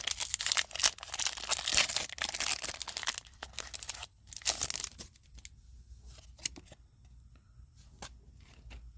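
Foil Pokemon booster pack wrapper being torn open and crinkled for about five seconds, then a few faint clicks and rustles of cards being handled.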